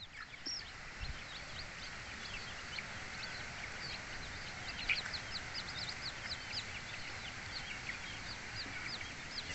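Newly hatched native chicks peeping continuously: many short, high peeps a second, overlapping and growing louder near the end.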